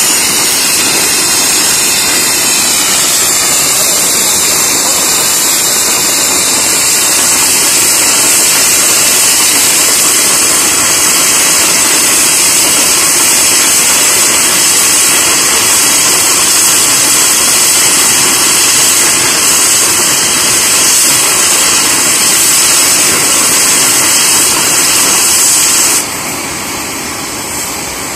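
Mi-8 helicopter's turbine running on the ground with a loud, steady jet-like hiss and whine, the main rotor not yet turning. The sound drops suddenly in level near the end.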